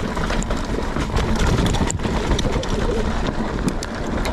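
Mountain bike riding over a rough, rocky trail: tyres on rock and the bike rattling in many small knocks, with wind buffeting the microphone.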